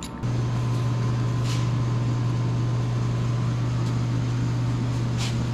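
Steady low machine hum, like a fan or motor running, that switches on suddenly just after the start, with a few faint clicks over it.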